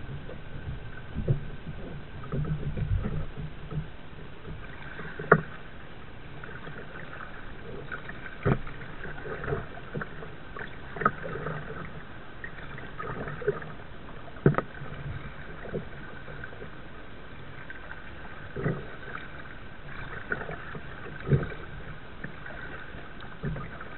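Kayak being paddled: the paddle blades dip and splash in the water, with a sharp knock every few seconds. There is a low rumble in the first few seconds.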